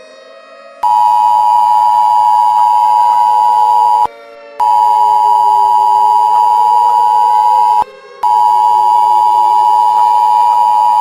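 Emergency Alert System attention signal: a loud steady two-tone beep sounding three times, about three seconds each with short breaks. A fainter wailing siren slowly rises and falls in pitch underneath.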